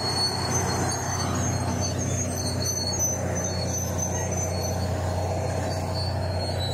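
Large crawler bulldozer's diesel engine running steadily as it pushes drifted sand off the road, a constant low hum with faint high squeals above it.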